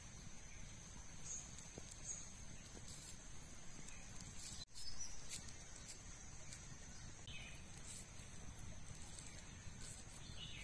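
Forest ambience: a steady high-pitched insect drone over a low rumble, with a few faint bird chirps in the second half and a short break near the middle.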